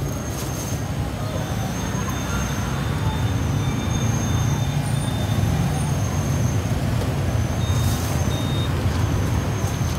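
Steady rumble of busy street traffic, with a couple of brief sharp knocks, one near the start and one about eight seconds in.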